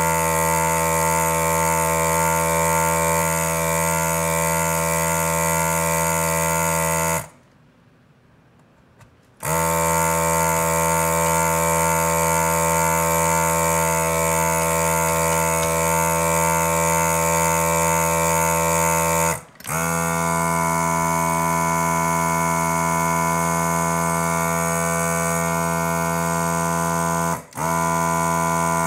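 Hakko FR-301 desoldering gun's built-in vacuum pump running with a steady hum, drawing molten solder off a circuit board's pins. It runs about seven seconds, stops for two, then runs on with two brief breaks, its tone changing after the first.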